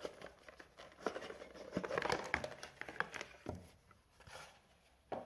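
Hands handling a pyrography unit's plastic case and its cords on a table: scattered light clicks and knocks with cable rustle, busiest in the first three seconds or so, then a sharp click near the end.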